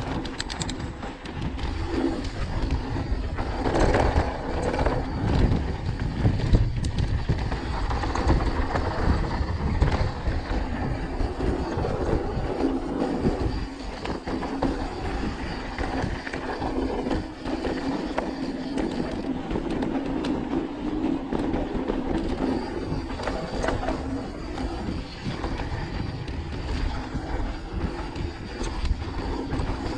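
Mountain bike rolling fast down a dirt and gravel trail: a steady rumble of knobby tyres on the ground, with short rattles and clicks from the bike over bumps.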